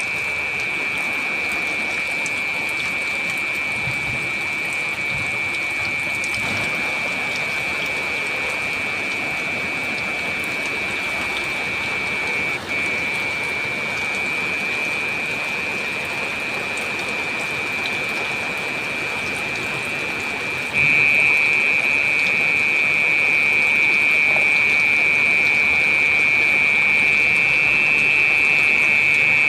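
Heavy rain falling in a steady hiss, with a brief dip about 13 seconds in and louder from about 21 seconds on.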